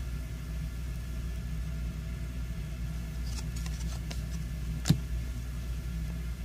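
A steady low rumble with faint clicks of trading cards being flipped, and one sharp card click about five seconds in.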